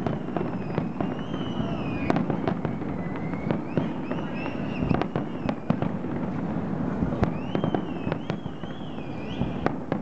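Fireworks display: aerial shells bursting in a string of sharp bangs and pops, several close together at times, over a steady low rumble. High whistling tones waver up and down now and then.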